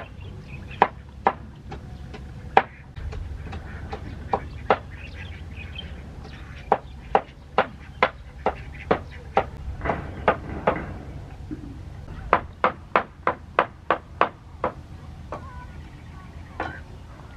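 A knife chopping water morning glory: sharp strikes in uneven runs of about two to three a second, with short pauses between the runs.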